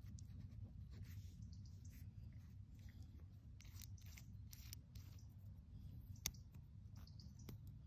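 Faint small clicks and scrapes as fingers work the metal retaining clip on a motorcycle fuel tap's knob, with one sharper click about six seconds in, over a low steady hum.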